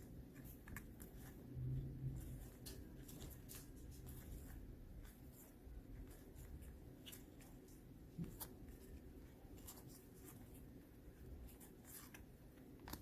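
Faint, scattered clicks and light paper rubbing of playing-card-sized Lenormand cards being handled and sorted through, with a brief low hum about two seconds in.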